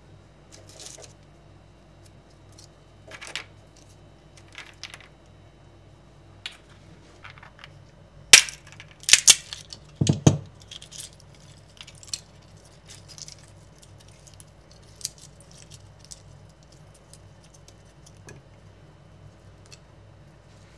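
Scattered light clicks and clinks of small hard objects being handled, with a cluster of louder clatters and a dull knock about eight to ten seconds in.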